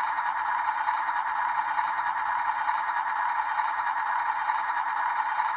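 Small electric motors and plastic gearboxes of radio-controlled toy construction trucks running, a steady rattling whir with a thin high whine.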